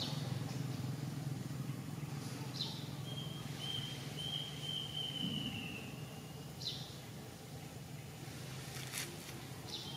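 Outdoor background noise: a steady low hum under a high, thin whistling tone. The tone comes in with a short upward sweep, is held for about three seconds in the middle, and starts again near the end.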